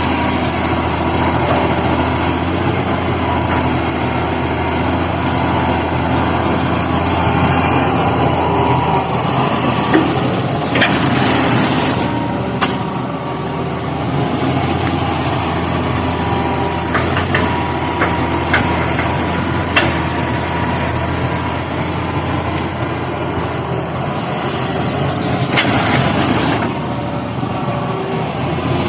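Excavator engine running steadily, with a few sharp knocks and two brief rushes of noise about ten and twenty-six seconds in.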